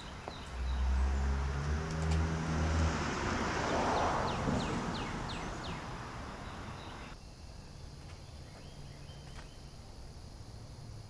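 A motor vehicle going by: a low engine hum that swells and then fades away over several seconds, with a bird giving a quick run of short chirps midway.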